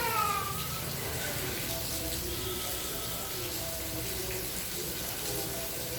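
Steady rain falling, an even hiss. A high, pitched call trails off in the first second.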